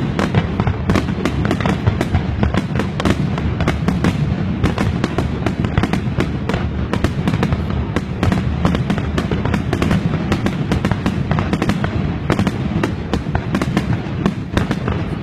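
Fireworks going off in a dense, continuous barrage: many sharp bangs and crackles in quick succession over a steady low rumble.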